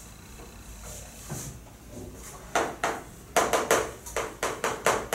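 Chalk on a blackboard: a soft eraser wiping at first, then from about two and a half seconds in, quick sharp taps and scratches of chalk writing, several strokes a second.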